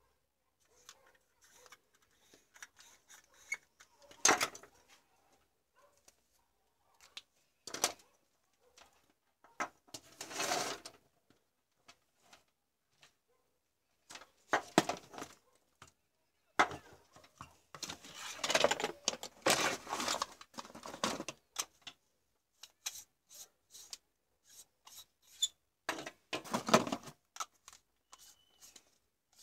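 Handling noise from the plastic parts of a compact fluorescent bulb being worked by hand: scattered sharp clicks and taps with several longer rubbing and scraping bursts, the busiest stretch a little past the middle.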